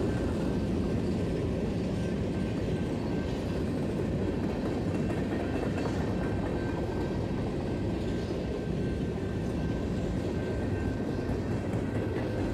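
Freight train covered hoppers and tank cars rolling past: a steady rumble of steel wheels on rail with some clatter, and a faint steady high tone over it.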